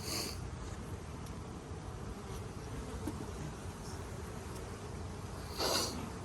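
Honeybees buzzing steadily around an opened hive. There is a short airy hiss right at the start and a louder one near the end, puffs from the bee smoker.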